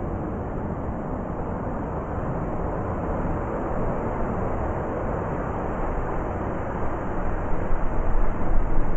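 Blizzard wind blowing as a low, steady rushing noise that turns gustier and louder about seven seconds in.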